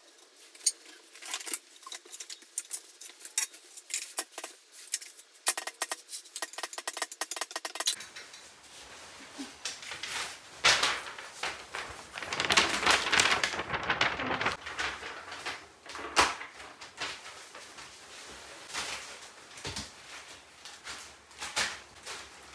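Clicking and clattering of the metal rack and pad clamps of an electronic drum kit being handled and tightened, with a quick run of clicks a few seconds in. About halfway through, a large paper instruction sheet rustles as it is unfolded and handled, followed by more scattered clicks and knocks.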